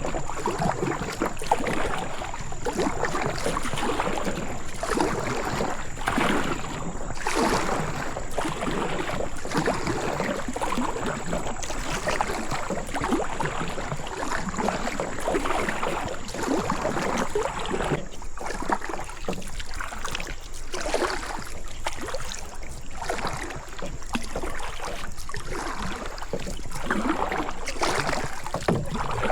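Kayak paddle strokes dipping and splashing in the water, a stroke every second or two.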